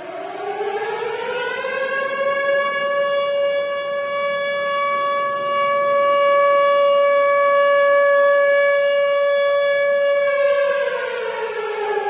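Tornado siren wailing: its pitch climbs over the first two seconds, holds steady for about eight seconds, then starts to fall near the end.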